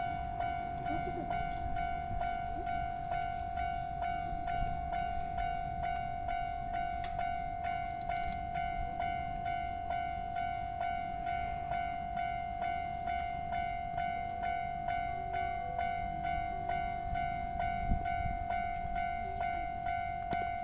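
Japanese level-crossing warning bell ringing: a steady high ding repeating about twice a second without a break, over a low rumble from the railway.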